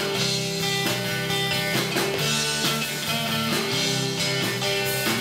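Live rock band playing an instrumental passage: amplified electric guitar over bass and a drum kit, with steady drum hits under held guitar notes.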